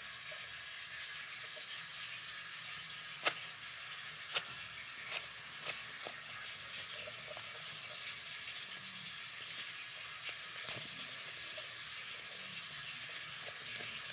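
Steady hiss with a few soft clicks and rustles as a paper wax strip is handled and pressed onto the skin of the armpit; the sharpest click comes about three seconds in.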